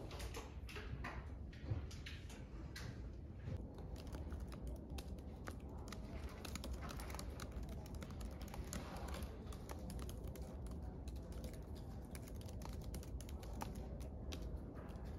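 Typing on a laptop keyboard: quick, uneven key clicks, over a low steady hum.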